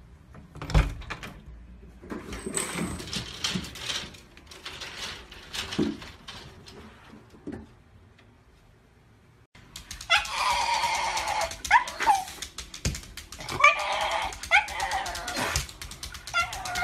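Knocks and rustles with a sharp thump about a second in, then, from about ten seconds in, a Shiba Inu whining and yelping in several high, wavering cries.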